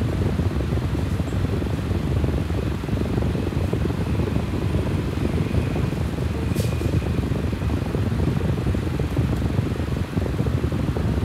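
Fan running with a steady low rumble, with one brief click about six and a half seconds in.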